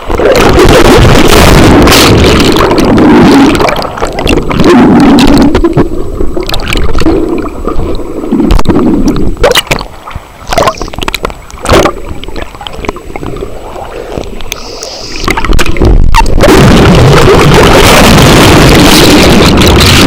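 Rushing water of a water-park rapids ride heard through a waterproof camera that dips under and up out of the flow: a loud, dull underwater rumble, giving way after a few seconds to a quieter stretch of sloshing and sharp splashes at the surface, then the underwater rumble again for the last few seconds.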